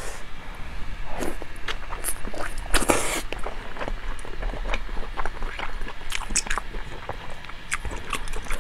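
Close-miked chewing and wet mouth sounds of a person eating saucy braised meat, with small clicks from chopsticks, and a louder noisy burst about three seconds in.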